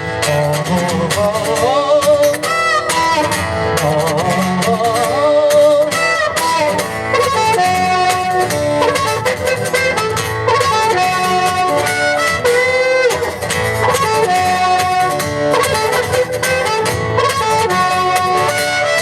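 Instrumental break of a song played live: guitar strumming steadily under a melodic lead line with wavering held notes.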